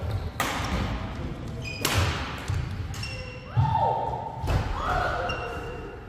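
Badminton rackets smacking a shuttlecock three times, each smack ringing in the hall, with court shoes squealing on the wooden floor in the second half.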